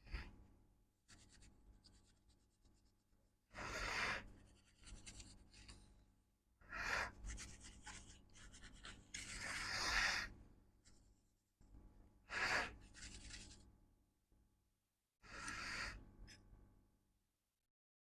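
Scrubbing and scratching on a circuit board in about five short bouts of half a second to a second and a half, with fainter scratching between: the board is being cleaned.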